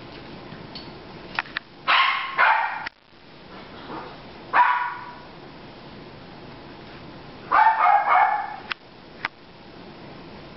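Puppies barking in short, high yaps during play: two about two seconds in, one near the middle, and a quick flurry about three quarters of the way through. A few sharp clicks fall between them.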